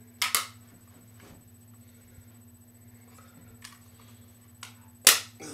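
Hard thrown objects clacking against a running electric fan: a quick double clack shortly after the start, a few faint ticks, then the loudest sharp clack near the end, over the fan's steady low hum.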